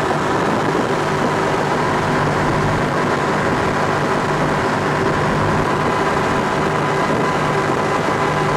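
Twin 1200 hp Mercury engines of an MTI 48 offshore catamaran running steadily at high speed, a constant drone at one unchanging pitch, heard from the cockpit with wind and water rushing past the hull.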